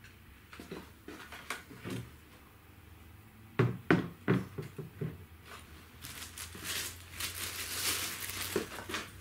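A desktop computer case knocks against a wooden tabletop several times in quick succession as it is turned round, about three and a half to four and a half seconds in. Over the last three seconds a plastic bag crinkles and rustles as it is handled.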